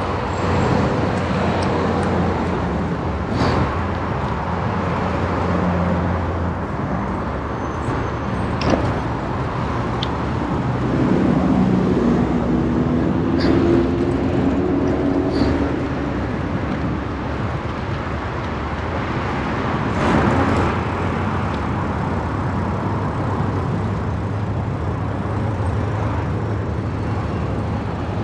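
City street traffic: cars running past with a steady road noise. One vehicle's engine hum swells louder from about eleven to fifteen seconds in.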